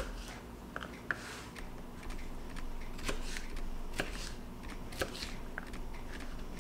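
Chef's knife cutting red bell pepper on a plastic cutting board: irregular sharp taps of the blade hitting the board, roughly once a second, with soft slicing strokes between.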